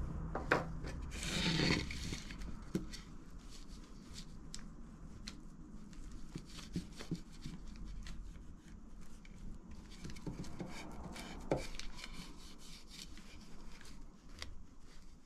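Hand work on wood: a sharp click, then a short scraping or rubbing burst, followed by scattered light taps and soft rubbing.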